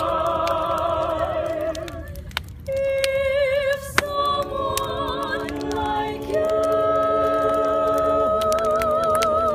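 Voices singing unaccompanied in long held notes with vibrato, breaking briefly about two seconds in, over the scattered crackle and pops of a burning wood fire.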